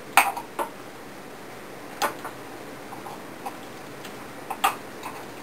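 A spoon knocking and scraping against the sides of a crock pot while stirring a thick mixture of shredded chicken and sauce: a few sharp, irregular clicks, several together near the start, a pair about two seconds in, and a couple more near the end.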